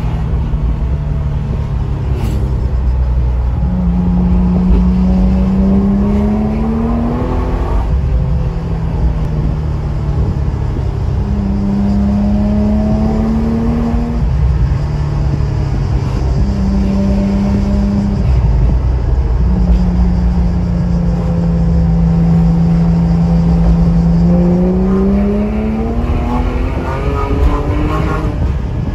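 Porsche 997 GT3's naturally aspirated flat-six engine heard from inside the cabin, its note rising in pitch through several moderate pulls, each cut off by a sudden drop at a gear change. Between pulls it holds a steady low drone, then climbs once more near the end.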